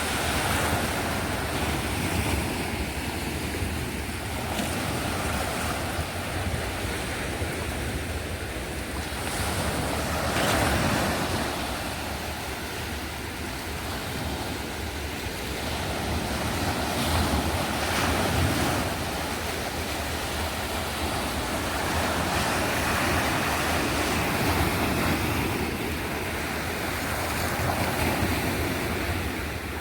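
Sea waves washing onto the shore, swelling and falling back every few seconds, with wind buffeting the microphone.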